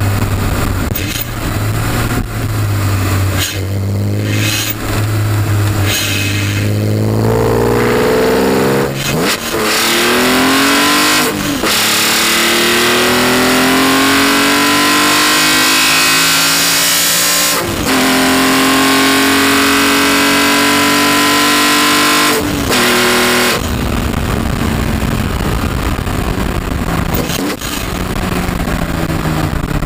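BMW E46 M3's S54 straight-six heard at the intake of an aftermarket GSR carbon airbox: induction noise under hard acceleration, pitch climbing through the gears with a brief dip at each of four upshifts. Near the end it eases off and the revs fall.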